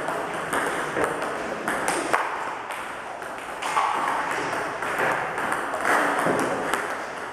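Table tennis balls clicking off paddles and bouncing on the table in a quick, steady run of sharp pings: a multiball drill, one player feeding balls across the net and the other hitting them back.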